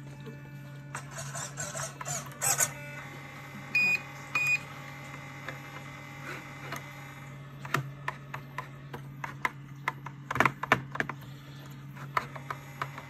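Two short electronic beeps from the RC sailboat's radio gear about four seconds in, over a steady low hum. Scattered sharp clicks and taps of handling the transmitter and boat follow, the loudest a cluster about ten seconds in.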